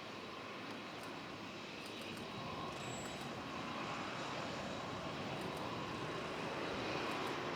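Boeing 737-800's CFM56 turbofan engines on landing approach: a steady jet rush with a faint high whine, growing slowly louder.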